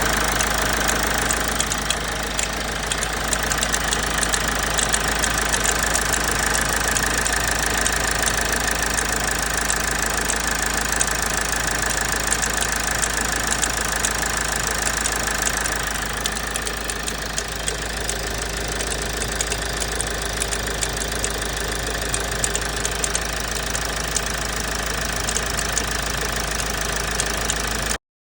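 Toyota RAV4 2.2 D-4D four-cylinder common-rail diesel running cold, with an irregular clattering rattle over the engine note. It is a cold-start rattle whose cause the owner cannot pin down, suspecting the timing chain, an injector, the exhaust, a heat shield or an engine mount.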